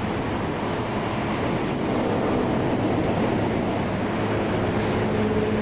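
Steady rush of road traffic, with a low engine hum growing louder near the end as a vehicle comes closer.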